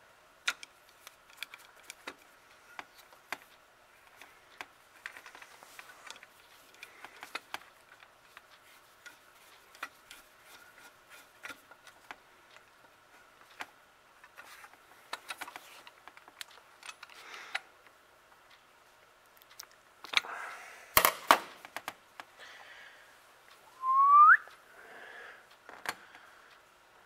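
Small metallic clicks and scrapes of a long screwdriver turning a new float needle seat into a Rochester Model B carburetor's air horn, with a few louder clicks near the end and a faint steady high tone underneath. About three-quarters of the way through, a short rising whistle sounds once.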